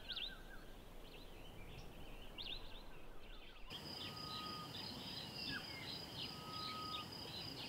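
Faint bush ambience: short bird chirps at first, then, about four seconds in, a steady high pulsing insect trill with two long, level bird whistles.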